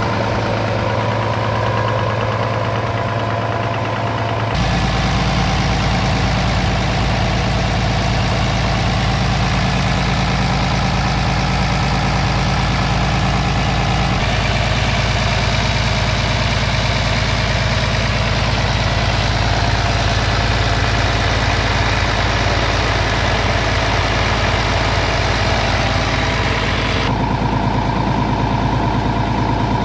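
Scania R 450's 13-litre inline-six diesel idling steadily, with abrupt changes in tone about four seconds in, near the middle and near the end.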